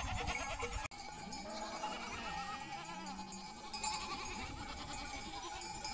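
A flock of sheep bleating, many calls overlapping, with a brief break about a second in.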